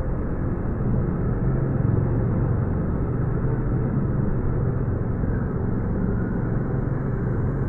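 A steady low rumble with no clear events in it, like vehicle or traffic noise, heavily muffled.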